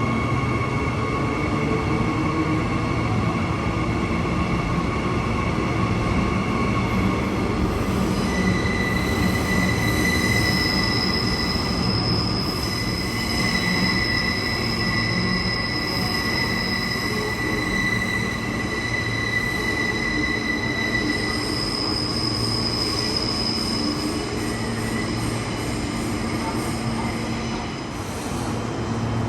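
Queensland Rail suburban train with its wheels squealing on the rails: long high-pitched squeal tones that shift in pitch, over the train's steady low rumble.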